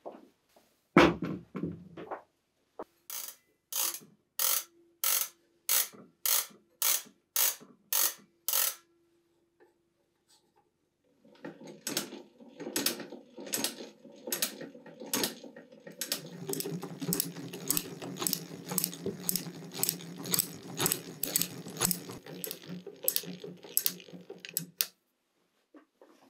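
Hand-crank bench drill press being cranked: a thump about a second in, then a steady series of ratchet clicks a little under two a second. From about eleven seconds the clicking comes faster over a steady gear whir as the bit drills, stopping just before the end.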